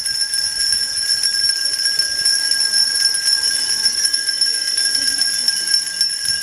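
Many hand-rung bells ringing together without a break: a dense, steady jangle of overlapping high tones with constant small strikes.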